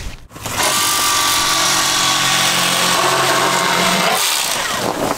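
Electric fillet knife running, its motor and blades buzzing steadily as it cuts through a fish fillet. It starts about half a second in and keeps going at an even level.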